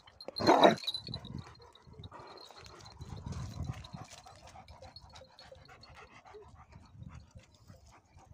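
Large livestock-guardian dogs close by: one short, loud dog vocalisation about half a second in, then the dogs panting and moving about, with footsteps crunching on stony ground.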